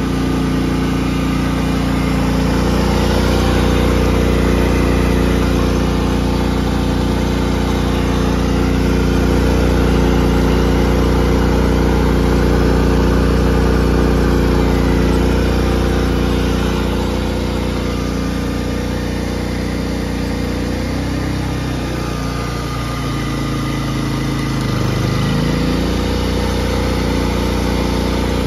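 Predator 3500 inverter generator's single-cylinder engine running steadily under electrical load. About twenty seconds in, its speed drops, then climbs back a few seconds later as the load is changed: the repaired inverter is being load-tested.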